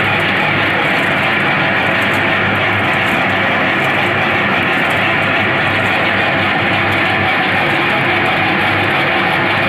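Wood pellet mill running with a loud, steady mechanical drone and a low hum that never changes.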